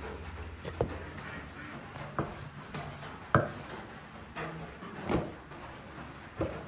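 A kitchen knife and raw meat knocking on a wooden cutting board during cutting: about five sharp, separate knocks, the loudest a little before halfway through.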